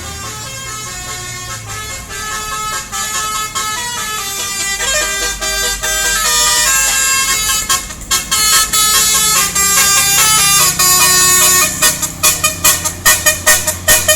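Bus 'telolet' multi-tone horn playing a tune of held notes that step in pitch, growing louder, then a quick string of short, rapid toots near the end.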